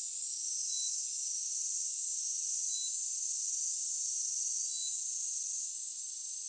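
Steady high-pitched insect chorus, with a short high electronic beep repeating about every two seconds.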